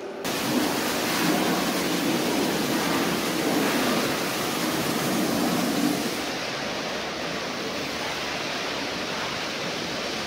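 Kärcher RB 6000 gantry truck wash running: a steady rush of water spray with the rotating brushes turning. It is louder for about the first six seconds, then softer and duller.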